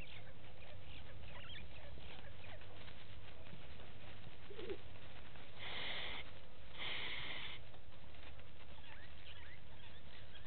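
Bush ambience: scattered faint bird chirps over a steady low rumble, with two short buzzing bursts about halfway through.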